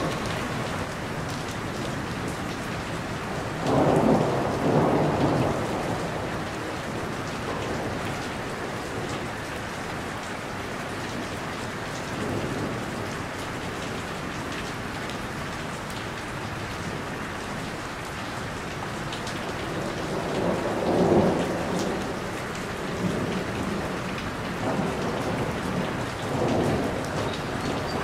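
Steady heavy rain falling on a roof, with two louder, deeper swells, about four seconds in and again about twenty-one seconds in.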